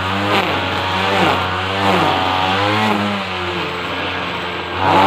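Petrol string trimmer (whipper snipper) engine running while edging, its revs repeatedly dropping and rising again as the throttle is worked, several times over.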